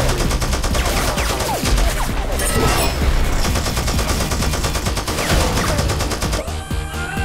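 Film soundtrack battle effects: rapid, continuous volleys of gunfire-like shots over a music score with steady deep bass notes.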